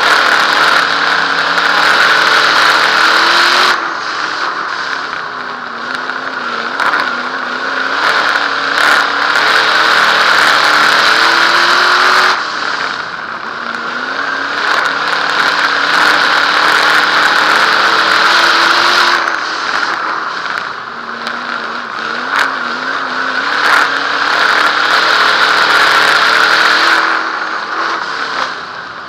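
Dirt modified race car's V8 engine heard from on board, running hard down the straights and backing off into the turns. The engine pitch rises and falls in a cycle that repeats about every eight seconds, lap after lap.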